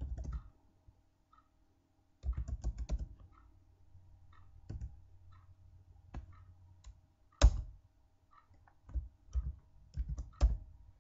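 Typing on a computer keyboard: a quick run of keystrokes about two seconds in, then scattered single key presses, with one sharp, louder keystroke about seven seconds in.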